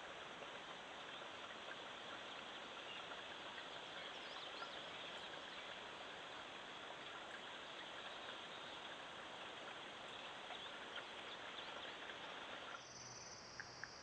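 Steady outdoor hiss picked up by a trail camera's microphone, with faint short chirps scattered through it. Near the end it changes to a steady high-pitched insect drone with a few quick clicks.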